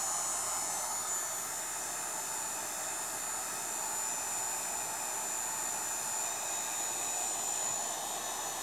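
Handheld electric heat gun running steadily: a constant rush of blown air with a thin high whine, shrinking heat-shrink tubing.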